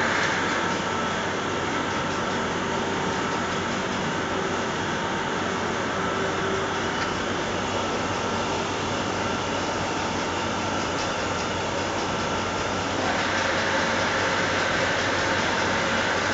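Steady running noise of a fibre-wadding production line for bedding: motors and rollers turning as the white batting sheet is fed through. It grows slightly louder about thirteen seconds in.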